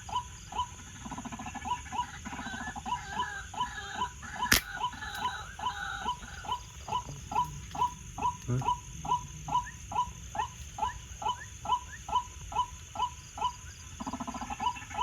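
White-breasted waterhen calling: a short falling note repeated evenly about three times a second. About four and a half seconds in there is a single sharp crack.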